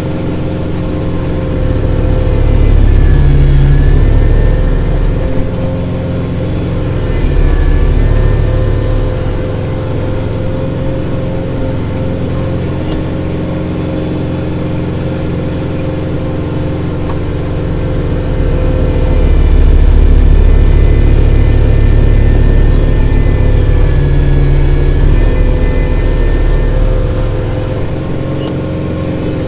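Kubota tractor's diesel engine running with the PTO engaged at 540 to drive the snow blower, with a steady whine over the engine. The sound swells louder a few times, for the longest stretch in the second half, as the engine and blower take load.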